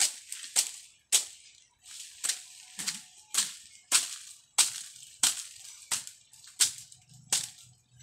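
Machete (bolo) chopping dry branches: a steady series of about a dozen sharp cracking chops, roughly one every half second or so.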